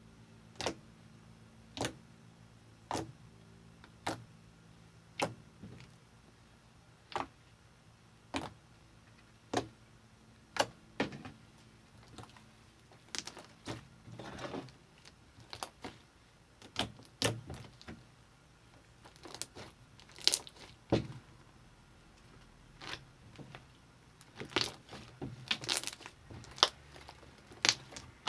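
Slime being squished and stretched by hand, giving sharp wet clicks and pops, about one a second at first, then more irregular and bunched together.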